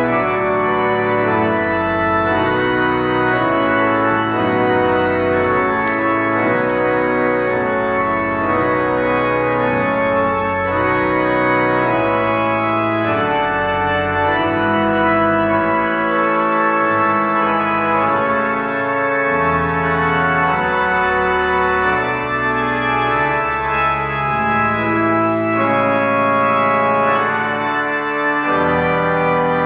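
Church organ playing sustained chords that change every second or so, at a steady loudness.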